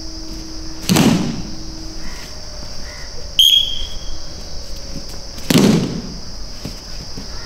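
A squad of judoka doing breakfalls (ukemi) in unison: two heavy crashes of bodies and slapping arms hitting the mats, about a second in and again near the end, with a short, high whistle blast between them.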